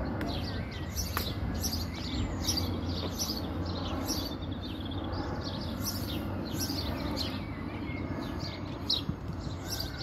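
Small birds chirping, a rapid run of short high chirps several times a second, over a steady low background rumble.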